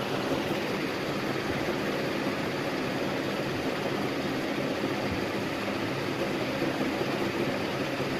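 Steady room background noise: an even hiss with no distinct events.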